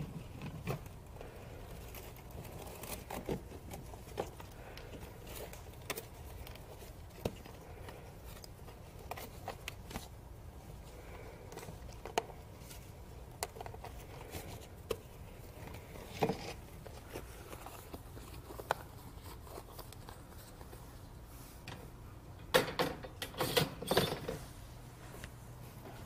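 Scattered light clicks, scrapes and rustles of a plastic pet carrier being handled while a small owl is taken out of it, with a louder burst of knocks and rustling near the end.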